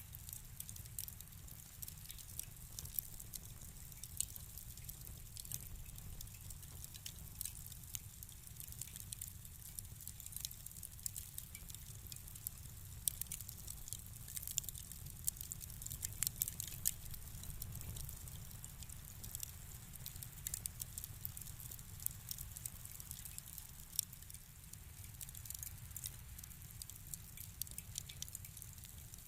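Wood fire in a fireplace crackling: irregular sharp snaps and pops over a low steady rumble.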